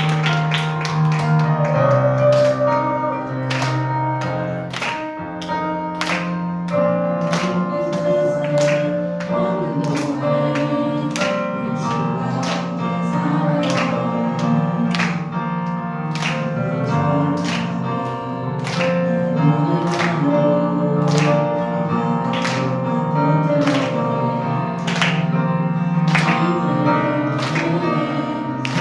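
Contemporary worship band music with held chords and a steady drum beat, about one and a half beats a second.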